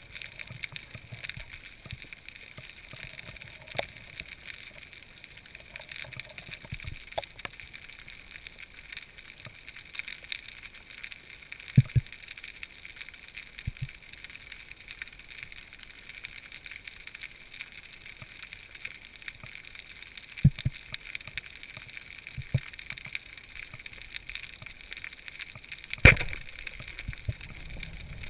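Underwater ambience heard through an action camera's waterproof housing: a steady hiss with faint crackling, broken by a few sharp knocks, the loudest near the end.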